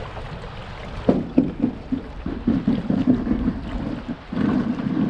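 Choppy lake water slapping against a canoe's hull in quick, irregular knocks from about a second in, over wind rumbling on the microphone.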